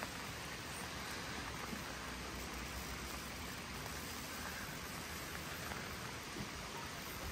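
Steady hiss of rain falling, mixed with the rush of a swollen, fast-flowing river.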